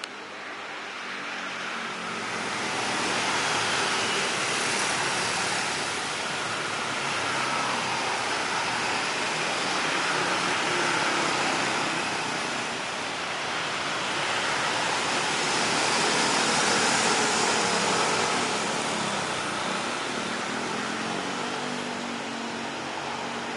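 Steady rushing, hissing aircraft turbine noise that builds over the first few seconds, then swells and eases slowly.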